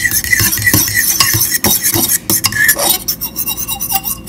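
A metal fork stirring pancake batter in a bowl, with repeated quick clicks and scrapes as it strikes the side of the bowl.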